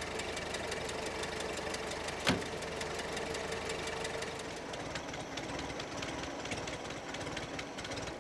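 Rapid, steady mechanical ticking and buzzing, with a single sharp knock about two seconds in that fits the car door being shut.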